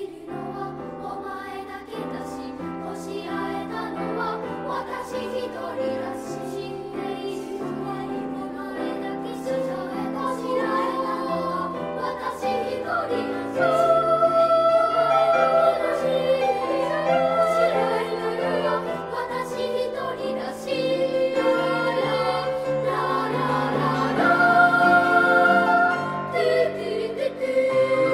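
Children's choir singing, growing louder about halfway through and again near the end.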